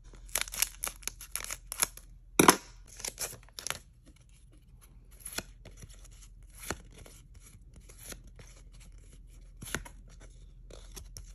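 Crisp scraping, clicking and snapping of stiff holographic foil trading cards as they are slid one behind another through a stack in the hands. The sounds come thick and fast for the first few seconds, then thin out to occasional clicks.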